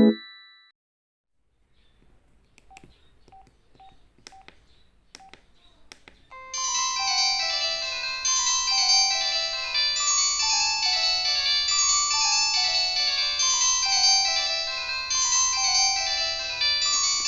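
Modottel WTE-300 mobile phone: a few faint clicks, some with a short beep, then about six seconds in a polyphonic MIDI ringtone starts playing a quick melody of short synth notes through the phone's small speaker.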